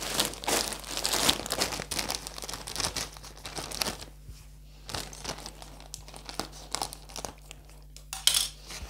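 Plastic bag of potting soil, a 15-litre sack of ericaceous compost, crinkling and rustling as it is handled and pulled at its top. The crackle is heaviest for the first few seconds, eases off, and flares briefly again near the end.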